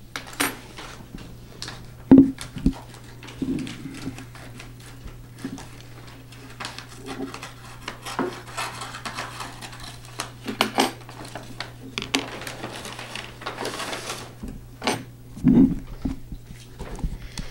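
Papers and documents being handled on a meeting table: rustling with scattered knocks and clicks, the loudest about two seconds in and again near the end, over a steady low hum.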